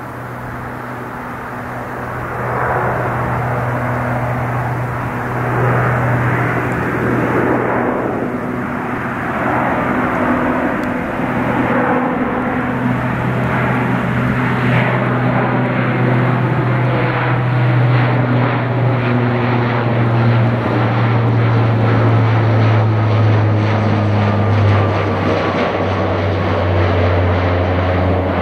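Lockheed C-130J Super Hercules flying overhead, its four turboprops giving a steady low propeller drone over engine roar. It grows louder over the first few seconds, and the drone drops in pitch near the end as the aircraft passes over.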